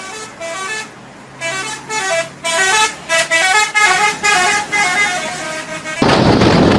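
Indonesian bus 'telolet' multi-tone horn playing a quick melody of short notes stepping up and down in pitch. About six seconds in, a loud rushing noise cuts in and drowns it.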